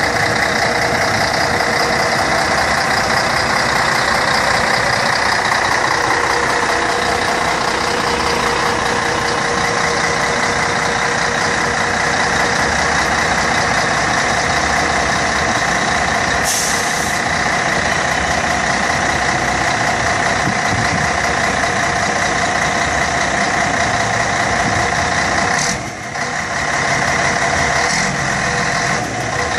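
Rear-mounted Scania diesel engine of a vintage coach running steadily at idle. About halfway through, a short hiss of air is let out.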